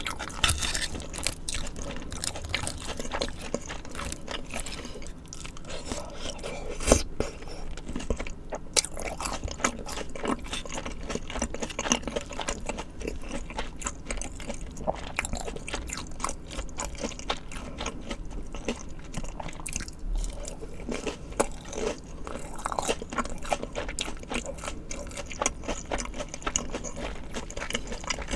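Close-miked eating sounds: steady biting and chewing with many crisp, crackly crunches, typical of fried foods eaten alongside tteokbokki. One sharper bite stands out about seven seconds in.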